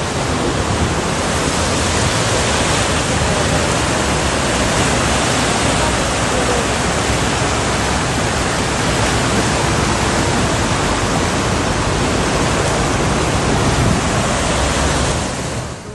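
Loud, steady rush of fast-flowing floodwater, an even roar of water with no let-up.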